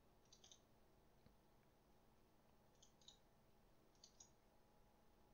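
Faint computer mouse button clicks, three quick double-clicks spaced a second or two apart, over near-silent room tone.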